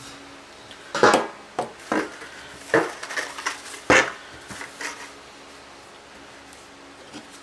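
Glittery metallic ribbon being handled and pressed flat on a cutting mat: a run of crisp rustles and taps, the loudest about a second in and again about four seconds in, fading out after about five seconds.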